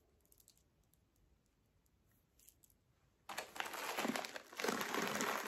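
Plastic packet of hard film-wax beads crinkling as it is handled, starting suddenly about three seconds in after near quiet with a few faint ticks.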